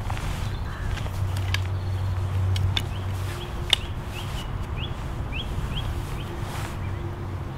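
Wind rumbling on the microphone, with a few sharp clicks and knocks as fishing tackle and a landing net are handled. From about three and a half seconds in, a bird calls a quick run of short rising chirps.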